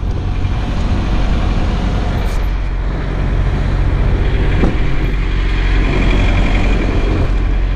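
Semi truck's diesel engine idling steadily, with a steady rushing noise over it.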